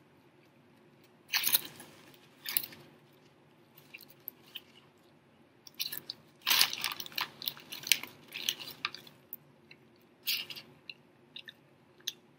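Biting into and chewing a Popeyes fried chicken sandwich, crunching in irregular bursts: two short bites in the first three seconds, a longer run of chewing in the middle, and another bite about ten seconds in.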